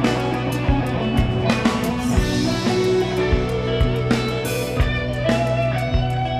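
Live progressive rock band playing: electric guitar over bass and drums, with a steady drum beat and cymbal crashes.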